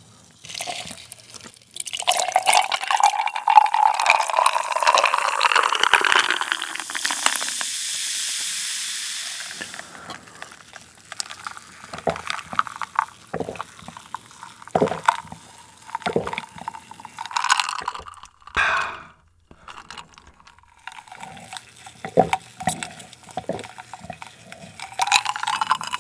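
Carbonated orange soda poured from a plastic bottle into a glass of ice, the pour rising in pitch as the glass fills, then a few seconds of fizzing as the bubbles settle. After that come scattered gulps and small clinks of ice in the glass as it is drunk.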